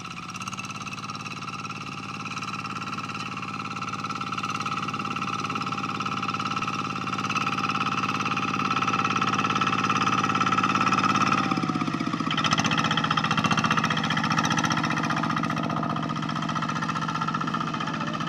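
Single-cylinder diesel engine of a two-wheel hand tractor running steadily while it pulls a plough, growing louder toward the middle as it comes close. About twelve seconds in, its pitch changes and the engine note settles at a different speed.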